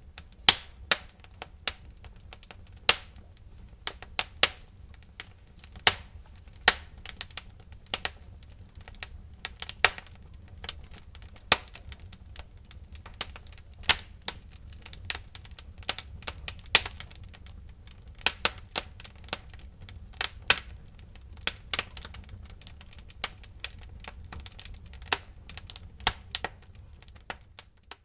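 Wood fire burning in a fireplace, crackling with irregular sharp pops and snaps, a few much louder than the rest, over a low steady rumble.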